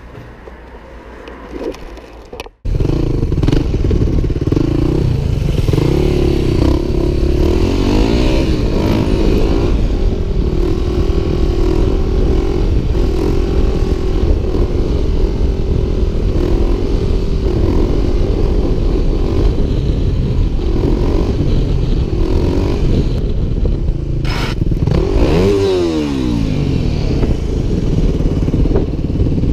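Motorcycle engine running under way, recorded on a helmet camera with wind rushing over the microphone. The engine pitch rises and falls with the throttle and gear changes, and near the end it drops and then climbs again. A couple of seconds of quieter indoor sound come first, and the ride starts abruptly at a cut.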